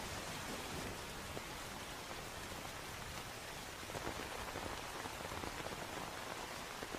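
Steady rain falling on wet ground, an even hiss with a few louder drops here and there.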